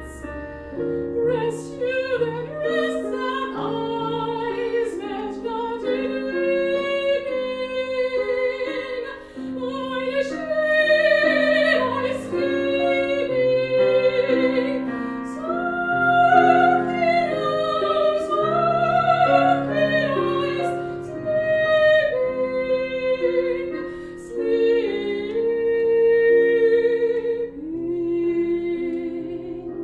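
Operatic soprano singing an aria with vibrato on the held notes, accompanied by a Casio Privia digital piano.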